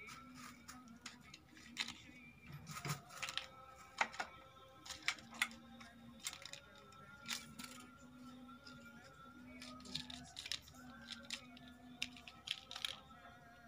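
Thin plastic bag crinkling and rustling in quick, sharp crackles as a kitten paws at it and pushes its head into it, over faint background music.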